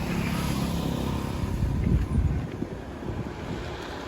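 A motor vehicle's engine running with a low rumble. It grows louder about two seconds in, then drops away.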